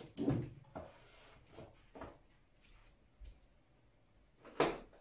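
A few scattered soft knocks and rustles of household items being handled and moved about, with one sharper knock near the end.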